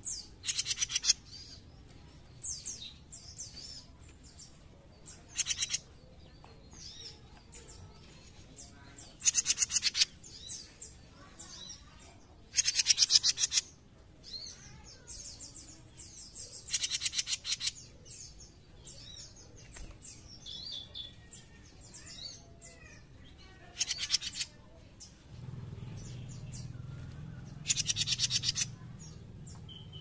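Jenggot mini songbird singing in its cage: loud, very rapid buzzing trills of about a second each, repeated every few seconds, with softer twittering notes between them.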